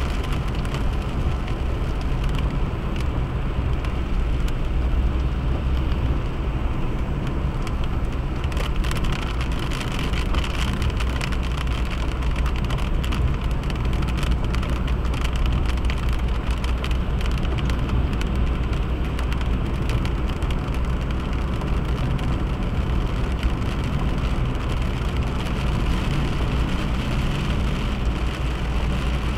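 Steady road noise of a car driving on a highway: engine and tyre rumble that holds even throughout.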